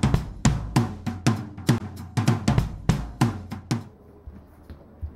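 Drum-kit music with bass and snare hits about three a second, including a quick roll, stopping abruptly about four seconds in; quiet room sound follows.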